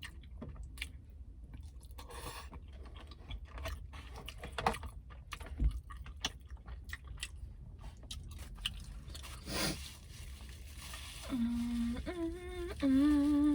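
Close-up chewing and mouth sounds from eating, with many small wet clicks and smacks. About eleven seconds in, a woman starts humming a tune with her mouth closed, in a few held notes that step up in pitch.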